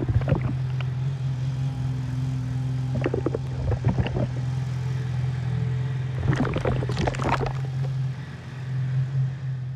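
Narrow-gauge diesel peat-railway locomotive running with a steady low engine hum as it approaches with its train of peat wagons. Clusters of clattering and clanking from the wheels and wagons come in three bouts, the loudest about two-thirds of the way through.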